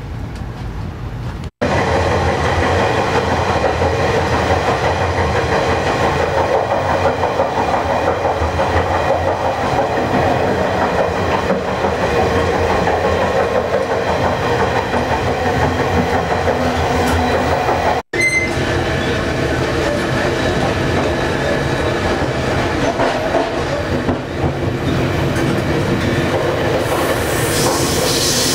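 Running noise of a Budd-built stainless steel passenger train on the move: a dense, steady noise of wheels on rail and the car body rattling, heard in the end vestibule between cars. It jumps louder about a second and a half in, and a high hiss rises near the end.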